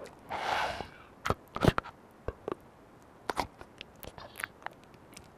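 A short breathy hiss, then a run of irregular sharp clicks and crunching cracks, unevenly spaced, the loudest a little under two seconds in.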